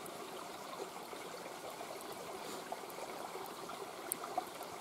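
Mountain stream babbling steadily over rocks, with a couple of faint pops from a wood campfire about four seconds in.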